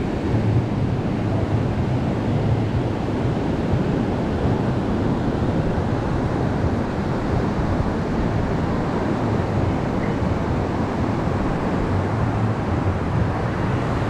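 Pacific surf breaking and washing up a sandy beach: a steady roar of waves without pause, with wind rumbling on the microphone.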